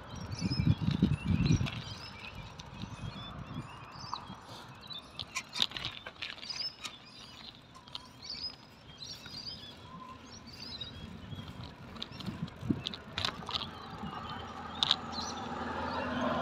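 Birds chirping and calling throughout, over the knocks and rattles of a bicycle rolling on a concrete footpath. There are heavy bumps in the first two seconds as it crosses the kerb, and scattered sharp clicks later. A hum grows louder near the end.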